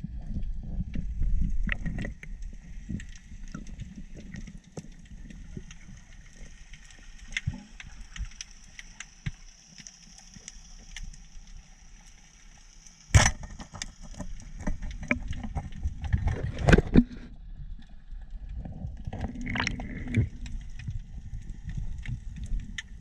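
Underwater sound picked up by a camera in its housing during a freedive: a low rumble of moving water with scattered crackling clicks and a faint hiss. One sharp loud knock about 13 seconds in, and a flurry of knocks and thrashing a few seconds later.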